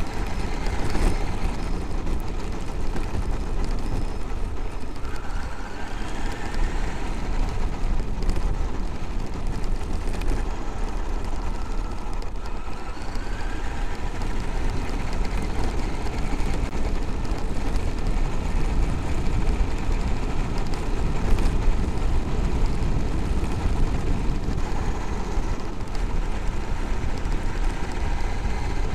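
Traxxas X-Maxx RC monster truck driving on a gravel track, heard from a camera mounted on the truck: a steady low rumble of the tyres and chassis on gravel, with the faint whine of its brushless electric motor rising and falling.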